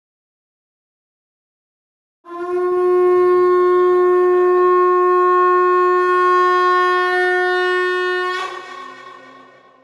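Conch shell (shankha) blown in one long, steady note that starts after about two seconds of silence, then wavers and fades out near the end as the breath gives out.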